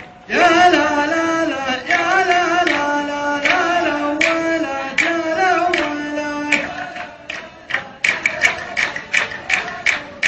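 A man singing a long, ornamented mawwal phrase solo, the voice held and wavering on high notes until about seven seconds in. Sharp rhythmic beats, about three a second, then take over.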